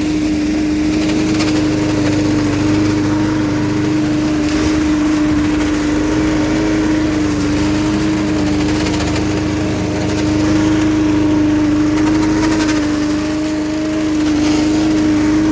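Billy Goat walk-behind leaf and litter vacuum running at a steady speed, its small engine and fan making an even drone that holds one pitch.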